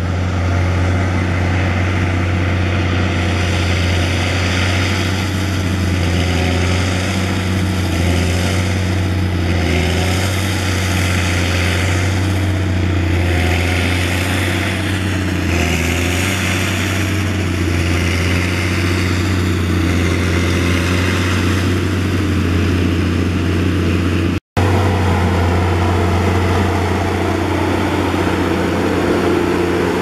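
CAT Challenger MT755B rubber-tracked tractor's diesel engine running steadily under load as it pulls a cultivator through the soil: a constant low engine drone with track and implement noise rising and falling over it. The sound cuts out for an instant about three quarters of the way through, then carries on.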